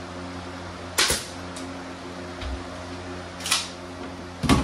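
Pneumatic nail gun firing nails into a cabinet side panel: three short, sharp shots, about a second in, about three and a half seconds in, and near the end.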